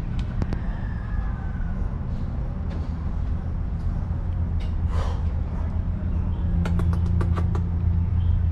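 A steady low mechanical hum, like a motor or engine running, growing slightly louder in the second half, with a few faint clicks near the end.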